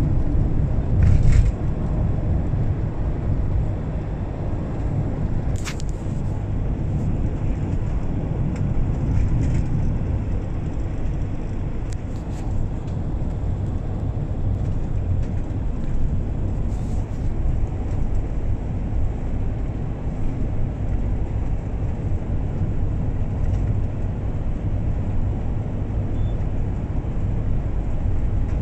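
Car driving at steady speed on an asphalt road, heard from inside the cabin: a constant low engine and tyre rumble, with a few light clicks.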